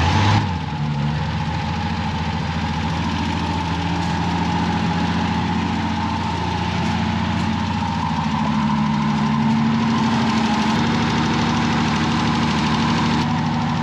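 Propane-fuelled engine of an old mini plow truck idling steadily just after being started, its note shifting slightly about eleven seconds in.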